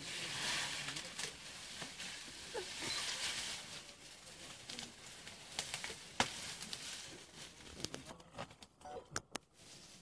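African elephants browsing at close range: leaves rustling and twigs snapping as they pull at branches, with a sharp crack about six seconds in.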